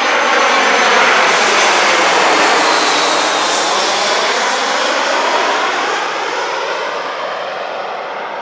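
Eurowings Airbus A319 jet airliner passing low overhead on its landing approach: loud jet engine noise with whining tones that fall in pitch as it goes by, loudest about a second in and fading over the last few seconds.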